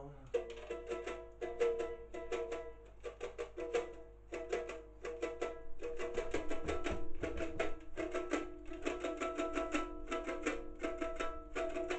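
Small ukulele strummed in a quick, steady rhythm of about five strokes a second, playing a short instrumental break of repeating chords.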